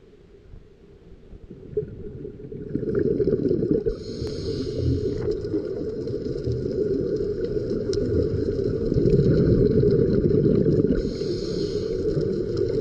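Underwater noise picked up by a diving camera: a muffled, low rushing rumble of water that grows louder about three seconds in, with a few faint sharp clicks over it.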